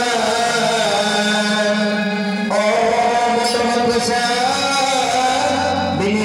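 Stage music: a voice sings long held, chant-like notes over instrumental accompaniment, and the melody changes pitch about two and a half seconds in and again near the end.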